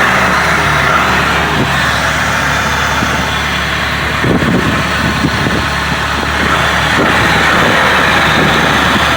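A 3.8-litre V6 in a 2005 Pontiac Bonneville idling steadily, just after its first start following a cylinder-head and gasket rebuild.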